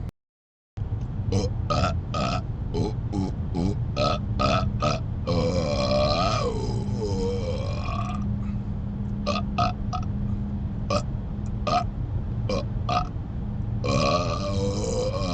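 Man burping over and over: a quick run of short rapid-fire burps, then a long drawn-out burp that wavers up and down in pitch, more short burps, and another long burp near the end. Steady low noise of the moving car runs underneath, after the sound cuts out for under a second at the very start.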